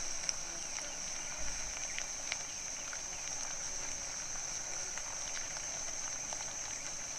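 Steady high-pitched insect drone, like a cricket or cicada chorus, with faint scattered ticks and crackles over it.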